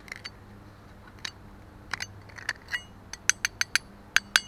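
Metal knife blade tapping against a stone gravestone: about a dozen sharp, ringing clinks, sparse at first, then quicker and louder near the end.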